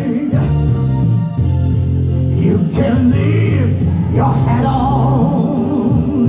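Live band music with a male lead singer, amplified through the stage sound system: a steady bass and band backing under sung lines.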